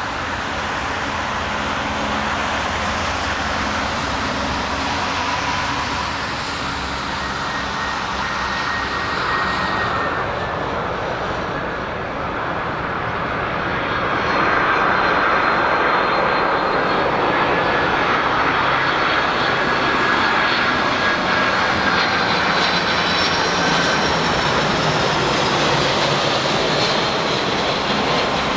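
KLM Boeing 747-400's four GE CF6-80C2 turbofan engines on final approach with gear down: a steady jet rumble with high whining fan tones. It grows louder about halfway through as the airliner comes closer.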